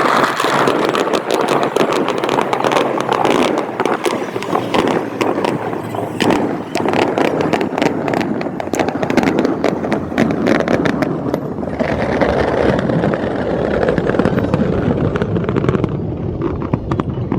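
Fireworks crackling in rapid strings of sharp pops over a steady, dense rumble. The crackling is thickest in the middle and thins out near the end, leaving mostly the low rumble.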